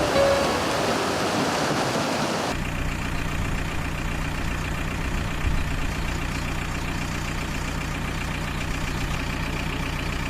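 A hissing rush for the first two and a half seconds that cuts off abruptly, then a steady engine-like hum, like a vehicle idling.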